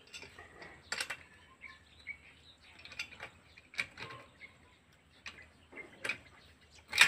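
Irregular faint clicks and knocks from a steel drill pipe being worked by hand in a muddy borehole during manual well drilling.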